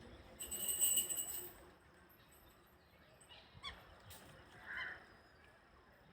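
Black-winged stilts calling: a loud, rapid run of sharp, honking calls about half a second in that lasts about a second, followed by a few fainter single calls. These are the agitated calls of stilts squabbling and chasing one another.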